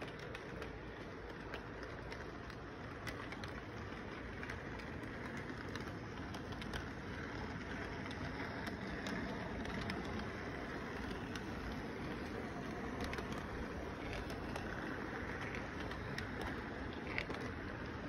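Model train with double-stacked container cars rolling past on its track: a steady rumble of wheels and motor that grows a little louder partway through, with scattered light clicks.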